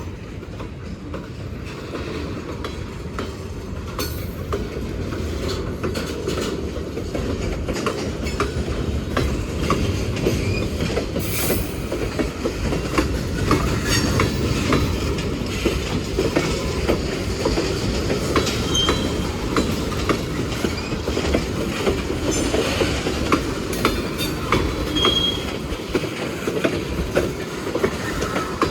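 Freight cars of a Norfolk Southern train rolling past: a steady rumble with rhythmic clicking of wheels over rail joints, and a few short, high wheel squeals in the second half.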